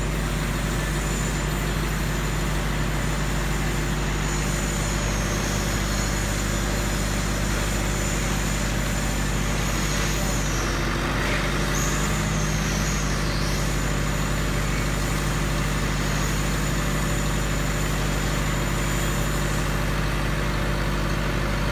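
10 kW silent diesel generator set running steadily under a load bank test, a constant low engine drone with a thin high whine over it. About halfway through the note wavers briefly as electrical load, about 5.6 kW, is switched in.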